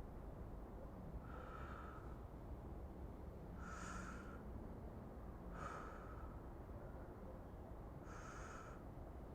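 A person's soft breaths close to the microphone, four short breaths a couple of seconds apart, over a faint steady low background hum.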